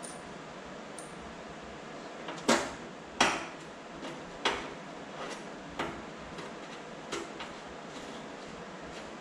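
Sharp metallic knocks and clicks from hex sheet metal screws and hand tools being worked on the engine's tin, two loud ones about two and a half and three seconds in, then several fainter taps at uneven intervals.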